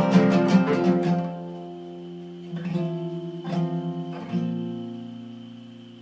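Acoustic guitar strummed quickly for about a second, then three single chords plucked and left to ring out, fading.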